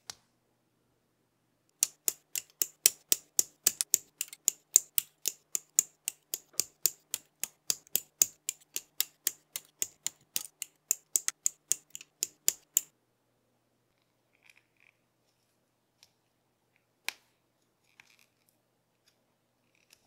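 Hobby side cutters snipping plastic model-kit parts off the runner: a fast, even string of sharp clicks, about three or four a second, that stops about thirteen seconds in, then one lone click a few seconds later.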